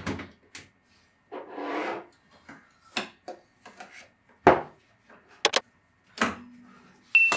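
Handling noises at an espresso machine: a cloth rubbing as the steel steam wand is wiped, among sharp clicks and knocks of metal parts being handled. A brief high tone sounds near the end.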